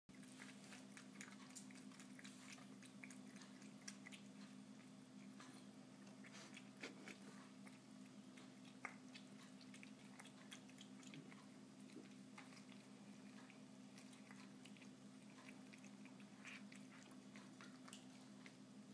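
Cat eating soaked freeze-dried raw lamb from a steel bowl: faint, irregular small chewing and licking clicks, over a steady low hum.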